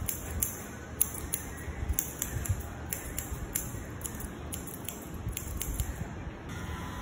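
Barber's hair-cutting scissors snipping hair in quick, crisp metallic snips, irregular at about two a second, stopping near the end.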